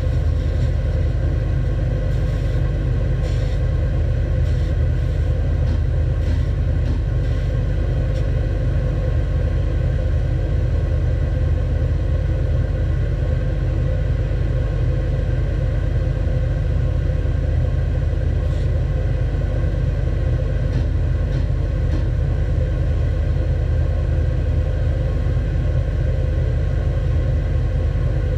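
Belt sander running steadily, with a low rumble under a constant motor hum. A few faint clicks come and go over it.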